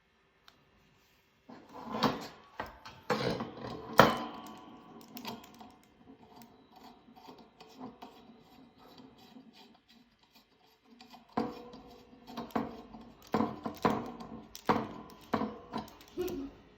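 Hands handling unboxed microphone parts and packaging: rubbing and rustling with clicks, a sharp click about four seconds in, then a run of knocks and clicks over the last five seconds.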